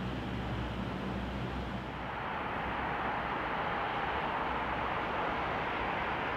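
Electric train running noise: a steady low hum for about the first two seconds, then an even rushing noise.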